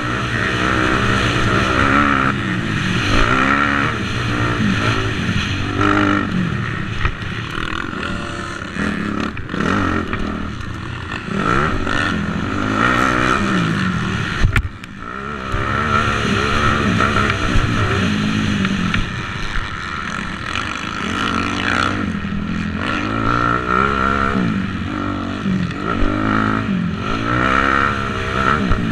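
250cc motocross bike engine revving hard, its pitch climbing and dropping again every second or two as it accelerates and shifts around the track, with a sharp knock about halfway through.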